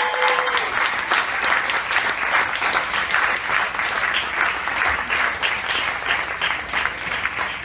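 Audience applauding at the end of a live band's song: dense, steady clapping. The band's last held note dies away in the first moment.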